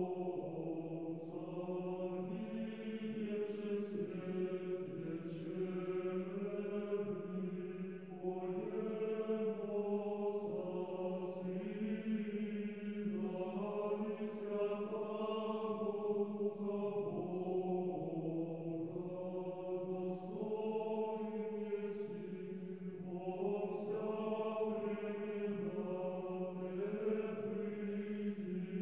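Slow liturgical chant sung by a choir, the voices moving between held notes over one steady low drone note that never stops.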